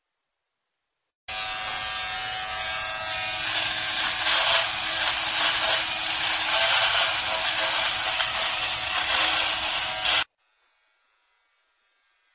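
Handheld electric shaver buzzing steadily as it is run over a moustache. It starts abruptly about a second in and stops abruptly near the end.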